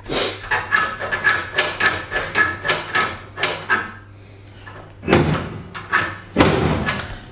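Nissan Silvia S15's bonnet catch being worked by hand: a run of quick metallic clicks and rattles with a faint ring, then two louder clunks about five and six and a half seconds in.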